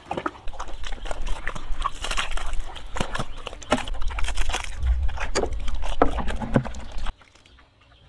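A black pig eating wet feed from a trough, a quick irregular run of smacking and chomping that cuts off abruptly about seven seconds in.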